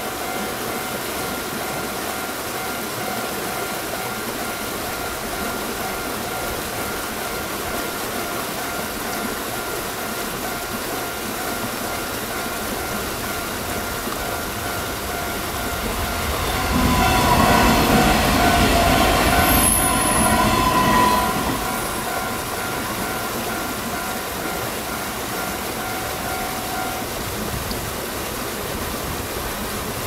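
Level-crossing warning bell ringing steadily over a hiss of rain. About 17 seconds in, a Taiwan Railways EMU500 electric multiple unit passes the crossing, a loud rush of wheel and rail noise lasting about five seconds. The bell stops a few seconds after the train has passed, as the barriers lift.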